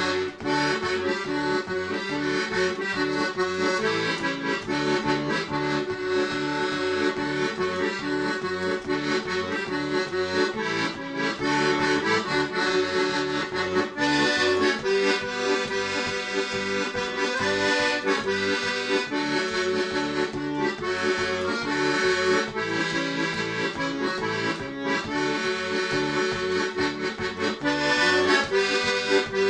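Piano accordion played solo: a sustained melody on the right-hand keys over an even, pulsing bass-and-chord accompaniment, without a break.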